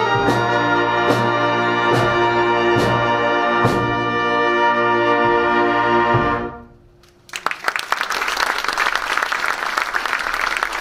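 Concert wind band holding a final brass chord over a steady percussion beat of about one stroke a second, then cutting off cleanly about six seconds in. After a brief hush the audience breaks into applause.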